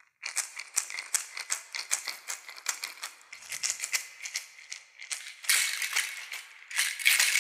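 A hand rattle shaken in an even rhythm, about three to four strokes a second, then shaken faster into a continuous swish for the last couple of seconds.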